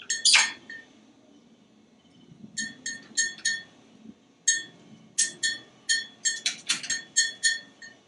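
African grey parrot on a toy-hung play perch making a run of short, bright clinks, a dozen or more, bunched in the second half, with a falling whistle just after the start.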